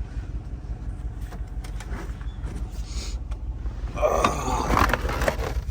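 Lincoln Navigator's 5.4-litre V8 idling with a steady low rumble. A few light clicks, then a louder rustling, scraping handling noise about four seconds in.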